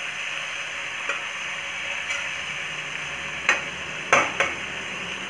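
Cauliflower, chickpeas and potatoes frying in a kadhai with a steady sizzle, while ground spices go in. A few sharp clicks of a metal utensil against the pan are loudest about three and a half and four seconds in.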